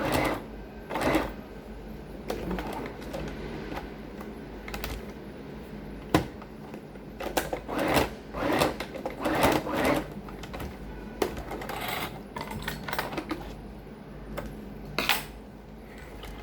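Sewing machine stitching in short stops and starts, with irregular clicks and knocks.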